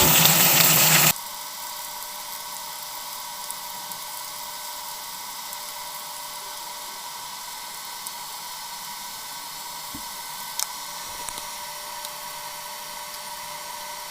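A louder sound cuts off about a second in. A steady whine with a hiss follows, like a small motor or fan running, with a few faint clicks.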